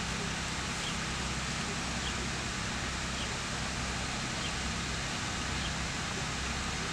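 Steady outdoor background noise: an even hiss over a low hum, with faint, short, high chirps every second or so.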